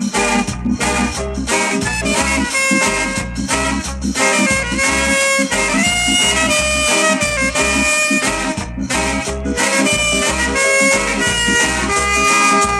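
Instrumental reggae record: horns play a held melody line over a pulsing bass line and a steady beat.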